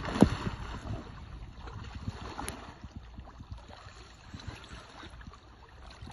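River water sloshing and splashing around an angler wading in waders, with wind on the microphone. A sharp knock comes just after the start, followed by a brief splash, and a fainter click about two and a half seconds in.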